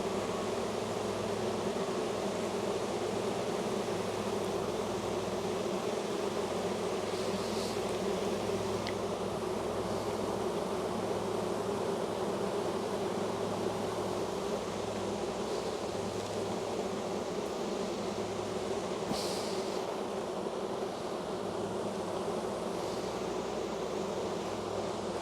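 Steady buzzing hum of a dense mass of honey bees from an opened, heavily populated hive.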